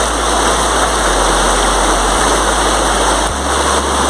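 Fast-flowing river water rushing steadily over rocks, loud and close, with a deep rumble underneath.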